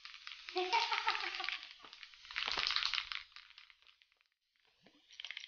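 Spray-paint can hissing in two long sprays with a crackly texture, the first with a few brief lower tones mixed in. A fresh spray starts near the end.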